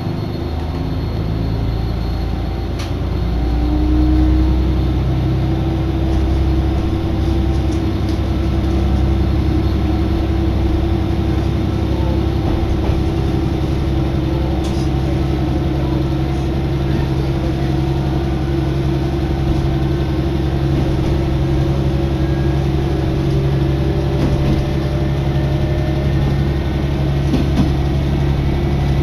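Diesel railcar's engine running under load as the train pulls out and gathers speed: a steady low drone with a hum that comes up and rises slightly in pitch a few seconds in.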